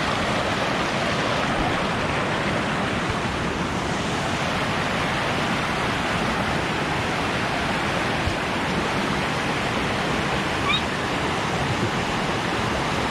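Fast mountain stream rushing over rocks close by: loud, steady white water with no let-up.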